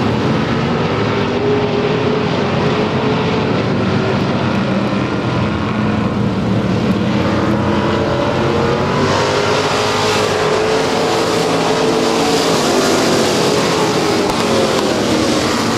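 Several dirt-track race cars running together at racing speed, their engines' pitch rising and falling as they go around the oval.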